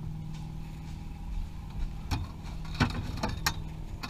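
A pole prodding around inside a pontoon boat's under-seat storage compartment, giving several sharp knocks against the compartment and the plastic container in the second half, over a steady low hum.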